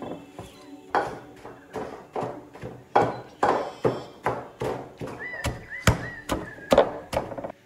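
Wooden tampers pounding shredded vegetables in a ceramic bowl and a glass bowl to bruise them for a ferment: a steady run of dull thuds, about two to three a second, from two pounders at once. A few short high chirps sound near the end.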